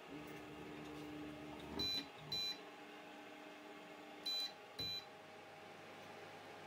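Tronxy Moore 1 clay 3D printer: a stepper motor hums steadily while the nozzle head moves clear of the finished print. The printer's buzzer gives two pairs of short, high beeps, about two seconds and four and a half seconds in.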